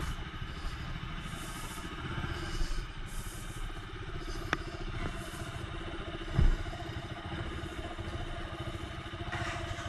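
Motorcycle engine running steadily with a low, rapid rumble. A sharp click comes about halfway through and a short thump a couple of seconds later.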